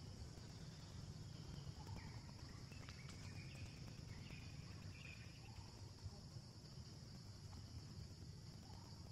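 Faint outdoor ambience: a steady, high-pitched insect drone over a low rumble, with a few short, faint chirps a couple of seconds in.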